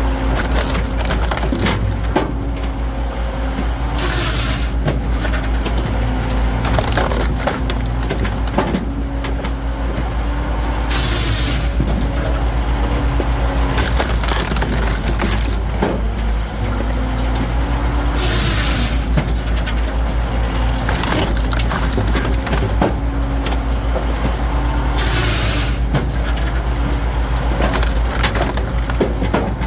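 Firewood processor at work: its engine runs steadily while green logs crack, crunch and splinter as they are split. A hissing rush of about a second comes round roughly every seven seconds with each cycle.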